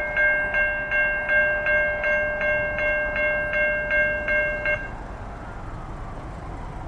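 Railroad grade-crossing warning bell ringing at about three strokes a second, then falling silent about five seconds in as the crossing warning ends.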